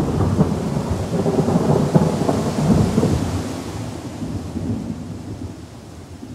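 Thunder rolling over rain. The rumble is loudest in the first few seconds and dies away toward the end.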